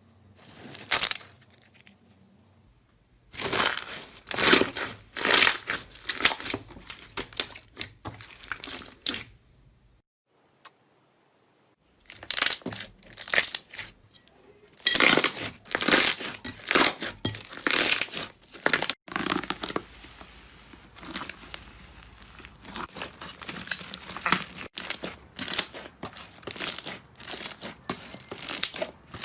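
Slime being squeezed, pressed and pulled by hand, crackling and popping in rapid, irregular runs, with two short pauses where the sound stops.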